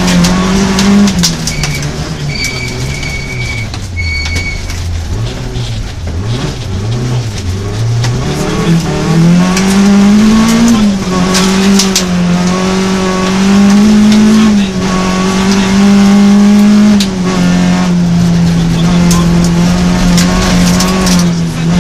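Rally car engine heard from inside the cabin, driven hard on loose gravel: the revs fall away for a few seconds about a quarter of the way in, then climb again and hold high with gear changes, while gravel pings and rattles against the body.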